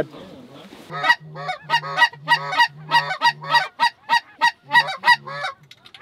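Geese honking in a quick, regular series of short calls, about three a second, starting about a second in and stopping shortly before the end.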